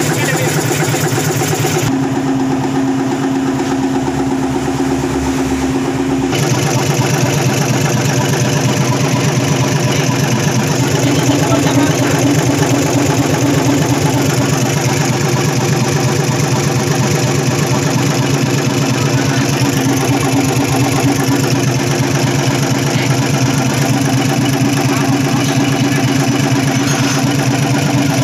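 Hino EM100 six-cylinder diesel engine idling steadily, running again after years standing unused.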